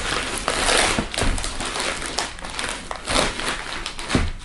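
Paper and packaging rustling and crinkling as items are handled and pulled out of a shipping box, with a few light knocks and a dull thud near the end.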